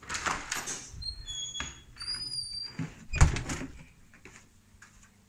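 Glass-paneled door being opened and gone through: handle and latch clicking and rattling, a few short high squeaks, and a loud thump about three seconds in.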